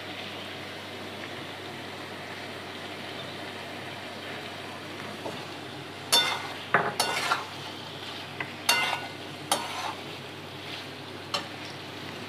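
Vegetables sizzling steadily in oil in a metal kadai. From about six seconds in, a metal spatula scrapes and clacks against the pan several times as the boiled chickpeas are stirred in.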